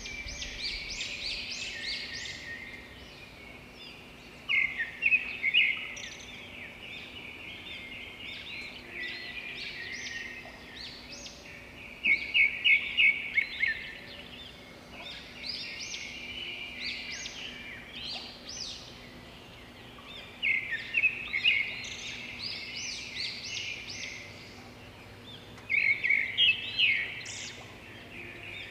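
Birds chirping in repeated quick series of high notes, with louder bursts of rapid chirps four times.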